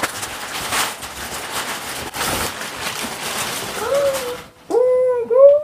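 Crumpled brown kraft packing paper rustling and crackling as it is pulled out of a cardboard box and handled. Near the end a loud, drawn-out, high-pitched vocal sound starts, wavering in pitch.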